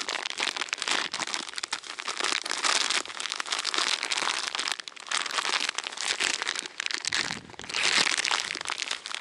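Hands mixing dry feeder groundbait in a bowl, a steady crunchy rustling and crackling that eases off briefly twice.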